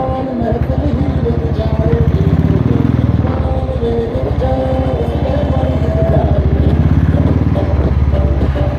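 Motorcycle engine running as the bike rides along a street, its exhaust pulsing in a rapid, even beat.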